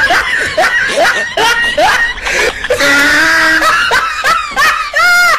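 A small dog vocalizing through bared teeth: a run of short rising yips and grumbles, a few each second, ending in a longer rising-and-falling whine.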